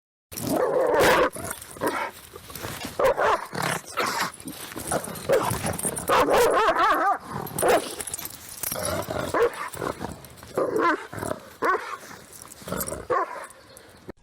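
A dog barking over and over, in irregular short calls with brief gaps between them.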